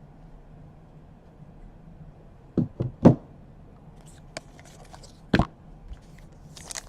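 A few sharp knocks: three in quick succession about two and a half seconds in and one more a little after five seconds, with faint light clicks between.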